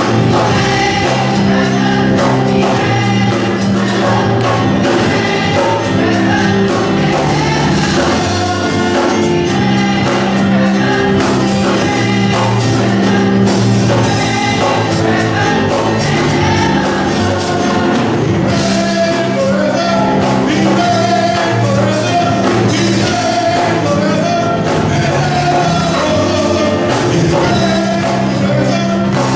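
Gospel choir singing together over a live band, with drums keeping a steady beat and held low notes underneath.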